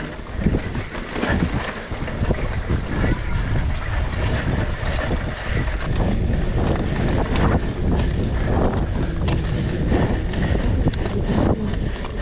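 Wind buffeting the microphone of a rider-mounted action camera on a mountain bike moving at speed, with a steady low rumble and scattered knocks and rattles from the tyres and bike over rough dirt and then grass.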